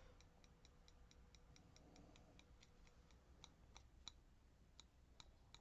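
Near silence with faint, rapid ticking, about four or five light ticks a second.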